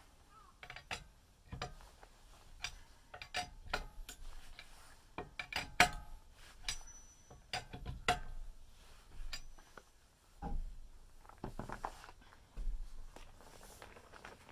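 Four-way cross lug wrench working a car wheel's lug nuts: irregular metal clicks and clinks, some ringing briefly. A few dull thumps come in the later part.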